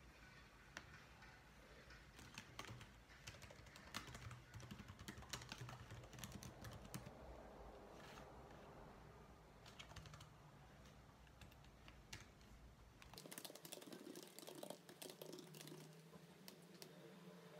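Typing on a laptop keyboard: soft, quick, irregular key clicks, coming in denser runs near the end.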